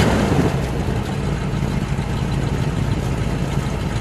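1961 Chrysler New Yorker's 413 cubic-inch V8 idling steadily through its exhaust, with a short loud rush of noise right at the start.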